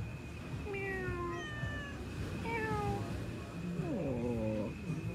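Ginger cat meowing about four times in a row while being petted, the last call lower and longer.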